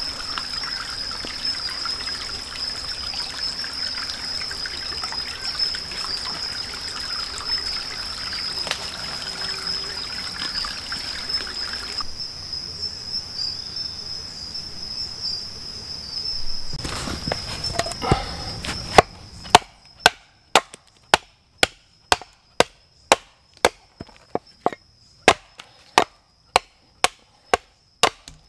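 Shallow forest stream trickling over stones, with a steady high insect drone. About two-thirds of the way in, a hatchet starts striking a piece of wood held on a stump: sharp, evenly spaced chops about two a second, the loudest sounds here.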